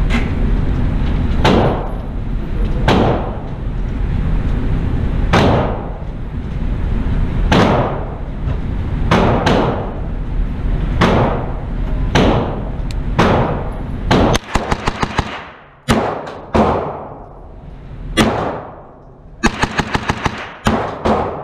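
Gunshots echoing in an indoor range: separate shots a second or two apart, then two rapid strings of about six shots each, about two-thirds of the way through and near the end. The rapid strings are a 16-inch AR-9 9mm pistol-caliber carbine fired in Bill Drills.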